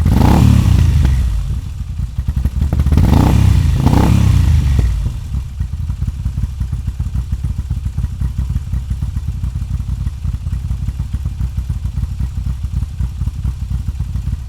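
2021 Moto Guzzi V7 850's air-cooled 853 cc transverse V-twin running through aftermarket Mistral silencers: revved twice, a few seconds apart, then settling into a steady, pulsing idle.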